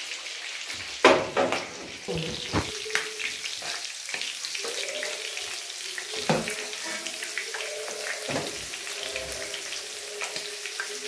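Food sizzling steadily in a frying pan over a gas flame, with a few sharp knocks of a utensil against the pan, the loudest about a second in.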